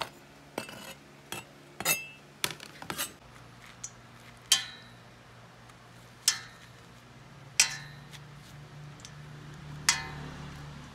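Light knife clicks and scrapes on a plastic cutting board in the first few seconds, then a metal spoon clinking against a stainless steel colander four times, each strike ringing briefly, as seeds are scooped from a squash.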